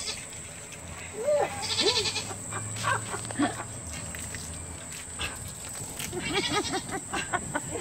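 A young goat bleating in short calls while it is being washed down with a garden hose.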